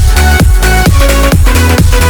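Electronic dance music backing track with a steady four-on-the-floor kick drum, about four beats a second, and synth chords.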